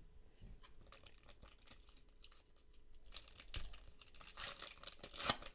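A foil trading-card pack being torn open and crinkled in the hands, with soft crackles at first and denser, louder crackling from about three seconds in.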